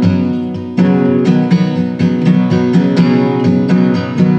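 Acoustic guitar strummed in a steady rhythm. A chord rings out at the start, and strumming picks up again about a second in.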